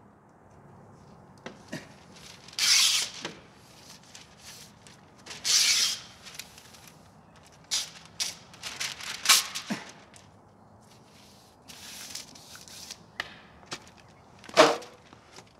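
Hand masker paying out taped masking paper: repeated ripping pulls as the tape peels off the roll, paper crinkling as it is pressed onto the door, and a few sharp snaps, the loudest near the end.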